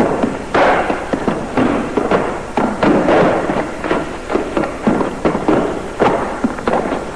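A rapid, irregular series of sharp knocks and thuds, several a second.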